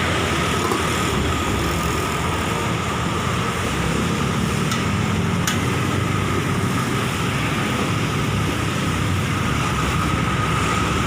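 Steady roadside traffic noise, passing vehicles blending into a continuous rush, with two faint clicks about five seconds in.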